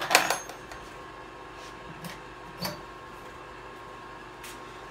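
A metal toolbox being handled: a sharp clatter just after the start, then a single smaller knock a couple of seconds later.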